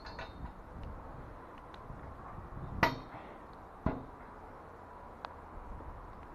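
Steel scaffold components being knocked together during assembly: two sharp metallic clanks about a second apart, the first ringing briefly, followed by a faint tick.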